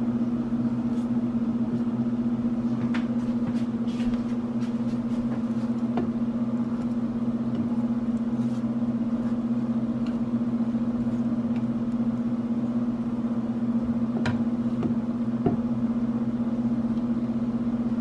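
A steady low electrical hum with a few faint taps and scrapes of a silicone spatula on a nonstick skillet while butter is spread around the pan.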